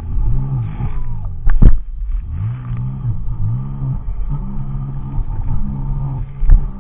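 Sea-Doo RXP 255 jet ski's supercharged three-cylinder engine running at speed, its pitch repeatedly rising and falling as the revs change, over the rush of water spray. Two sharp, loud thumps cut through, one about a second and a half in and one near the end.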